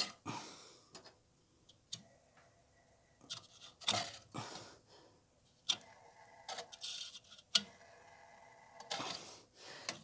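Irregular clicks, knocks and short scrapes of hands handling a clothes dryer's plastic blower fan and its metal motor bracket, with quiet gaps between them.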